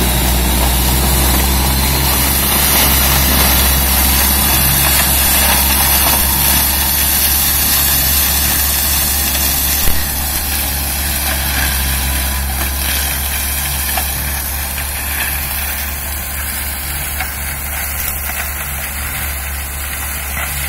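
Zetor 9641 tractor's turbo diesel engine running steadily under load, driving an FAE forestry mulcher that shreds brush and grass: a constant low drone. There is a brief knock about halfway through, after which the sound is a little quieter and keeps fading slowly as the tractor moves away.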